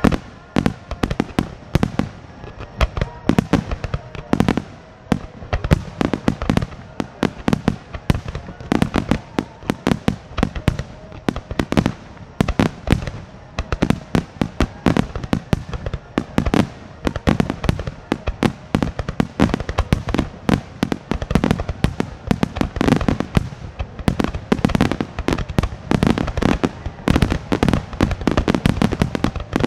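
A star mine fireworks finale: aerial shells fired and bursting in a rapid, unbroken barrage, several loud bangs a second.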